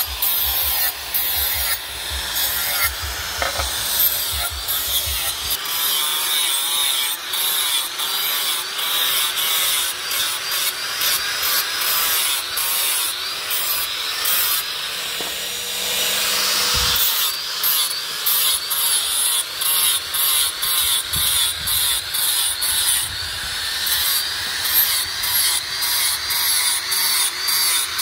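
Angle grinder running, its abrasive disc grinding the edges of steel cleaver blades. The whine wavers in pitch as each blade is pressed on and drawn along, and the grinding breaks off briefly again and again.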